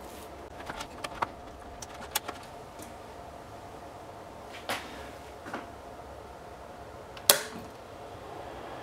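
Scattered sharp clicks and knocks of hard objects being handled, with one louder knock about seven seconds in, over a steady faint hum.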